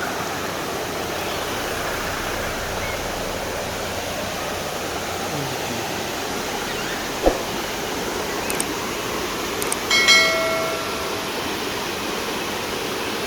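Steady rush of a waterfall and its stream flowing over rocks, the flow light for lack of rain. A single knock comes about seven seconds in, and a brief high-pitched call, the loudest sound, about ten seconds in.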